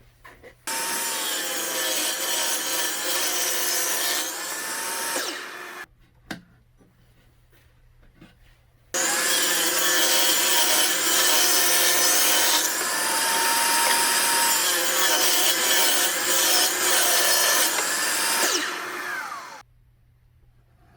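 A power saw, most likely the table saw, cutting wood twice: a first cut of about five seconds, then a longer one of about ten seconds. Each cut ends with the blade winding down.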